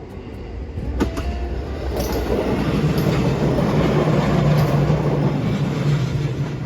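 A train passing by with rumbling wheel noise and a steady low hum, growing louder over the first few seconds and easing off near the end.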